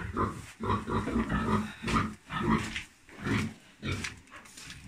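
Livestock making short, low grunting sounds, repeated about twice a second.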